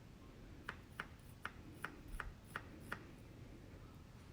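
Kitchen knife cutting an onion on a cutting board: faint, even taps of the blade on the board, about three a second.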